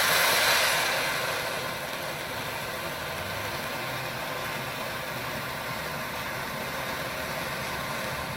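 Small ground fountain firework spraying sparks with a steady hiss, loudest in the first second, then burning on evenly until it dies out at the end.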